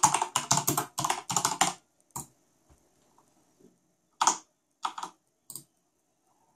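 Corsair Strafe RGB mechanical keyboard with Cherry MX Red switches being typed on. A quick run of keystrokes lasts about two seconds, followed by a few single key presses spaced about a second apart.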